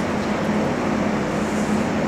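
Large air-circulation fans of a wood-drying kiln running steadily: a constant rush of air over a low, even hum.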